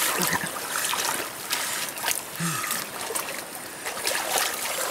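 Hands splashing and squelching in shallow muddy water while grabbing fish, with irregular wet slaps.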